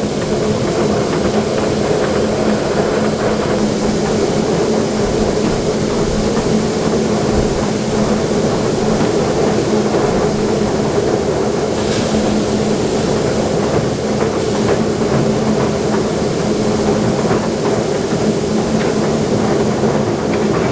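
A large engine of harvest machinery running steadily at constant speed, giving an unbroken hum with a couple of brief ticks around the middle.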